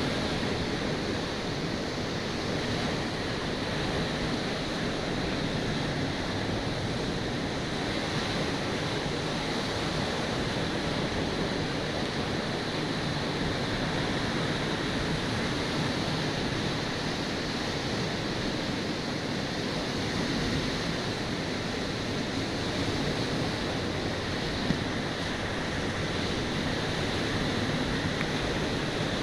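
Ocean surf rushing steadily onto a beach, mixed with wind buffeting the microphone. One brief tap comes near the end.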